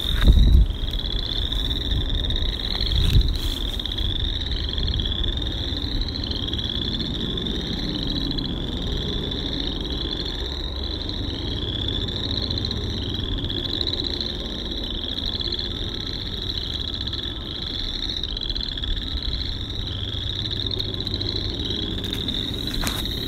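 Chorus of many frogs calling from a marshy pool: short, pulsed, rising trills overlapping and repeating without a break. A couple of low thumps in the first few seconds.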